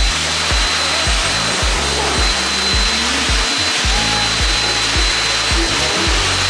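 High-velocity hose pet dryer blowing a steady, loud rush of air with a thin high whine in it, over background music with a steady beat.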